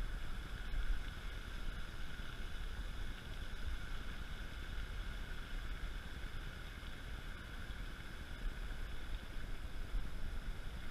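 Outdoor ambience with a gusty low rumble of wind on the microphone and a steady, unbroken high-pitched drone.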